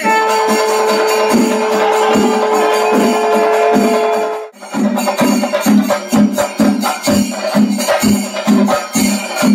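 Rhythmic percussion music. A steady beat runs under a long held tone for the first four and a half seconds, breaks off briefly, then picks up again with quicker beats.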